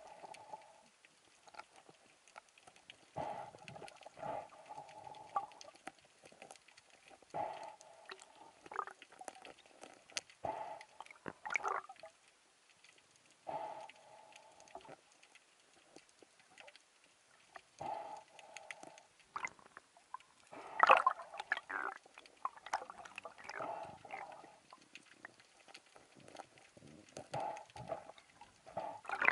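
Water sounds around a camera held underwater: sloshing and gurgling with small clicks, and a short hollow sound coming back every three to four seconds, the loudest about two thirds of the way through.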